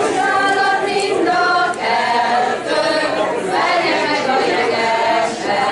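A group of voices singing a song together without instruments.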